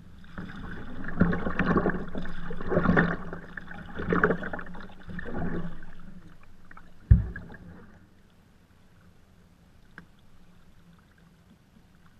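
Kayak paddle strokes splashing and dripping in river water close to the hull, about four strokes a second and a half apart, then a single sharp thump about seven seconds in.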